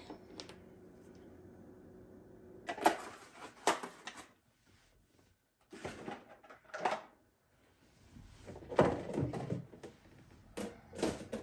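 Short bursts of knocks and clatter as things are handled and set down in and around an open cabinet being cleared out, in about four separate bursts with quiet gaps between.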